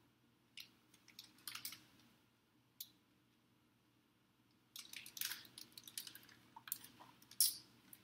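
Pages of a hardcover picture book being handled and turned: light paper rustling and small clicks, a few early on and a denser run of rustling in the second half, over a faint steady low hum.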